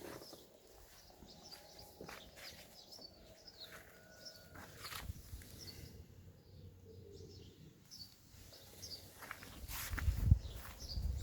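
Faint outdoor ambience with small birds chirping, scattered clicks and knocks, and a louder low thump and rumble near the end.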